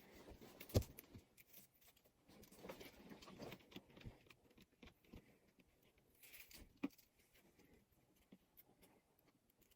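Faint handling sounds of LED strip lights being stuck on: scattered small clicks, taps and rustling, with a soft knock about a second in and another near seven seconds.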